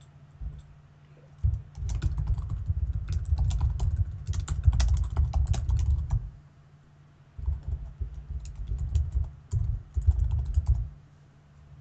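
Typing on a computer keyboard to write a message, in two bursts of quick keystrokes: the first a little over four seconds long starting about a second and a half in, the second about three and a half seconds long after a short pause. A dull low thud sits under the key clicks.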